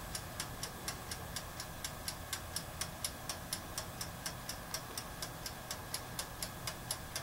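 Mechanical timer ticking quickly and evenly, just over four ticks a second.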